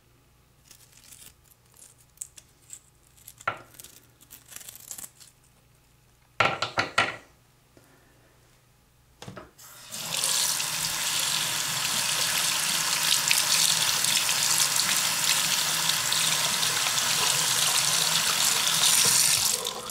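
Small handling clicks and a brief clatter of parts, then about halfway through a tap opens and water runs steadily for about ten seconds, stopping near the end, as the rust-clogged toilet fill valve screen is rinsed clean.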